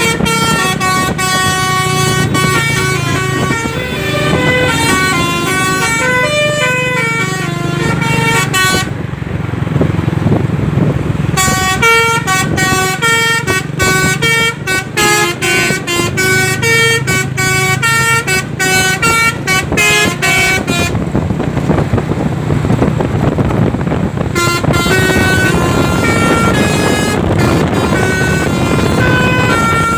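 Truck's telolet basuri multi-tone musical air horn playing a tune in quick note-to-note steps, breaking off twice for two or three seconds. A low steady rumble from the truck runs underneath.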